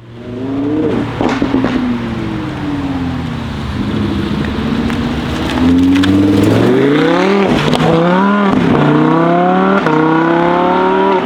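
Lamborghini Huracán's V10 exhaust: the engine note falls off the throttle with a few crackles about a second in, then the car accelerates hard, its pitch climbing and dropping back at three quick upshifts in the second half.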